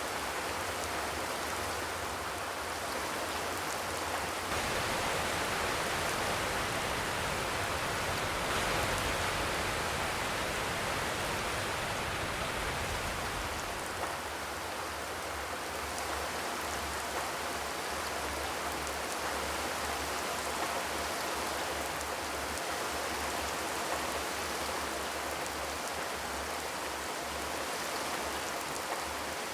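Steady rain falling on a corrugated zinc roof: an even hiss of many drops with occasional single louder drop ticks, no thunder.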